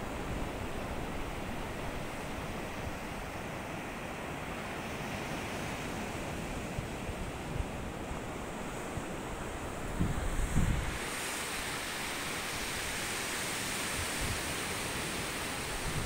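Sea surf breaking and washing up the beach as a steady hiss, with wind buffeting the microphone in a brief gust about ten seconds in.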